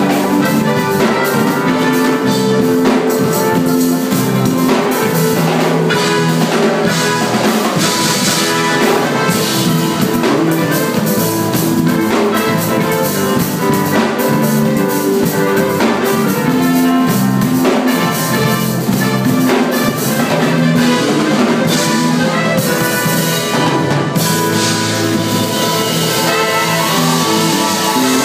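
Loud live band music, with a drum kit keeping a steady beat under held melodic notes.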